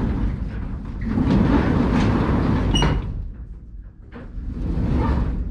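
Grain truck running, with a sharp metallic clunk and a brief ringing squeal just before three seconds in, after which the sound is quieter.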